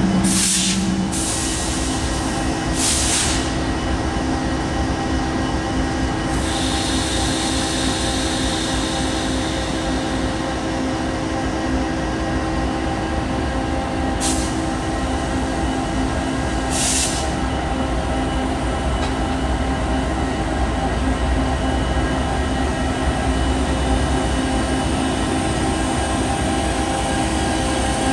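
Norfolk Southern diesel-electric freight locomotives rolling slowly past, their engines giving a steady low drone. The wheels give several short high squeals and one longer squeal from about six to ten seconds in.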